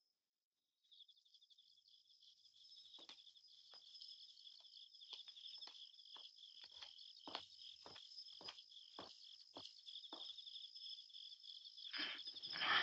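Crickets chirping steadily, with a series of about a dozen footsteps, roughly two a second, beginning a few seconds in. A louder scuffling noise comes near the end.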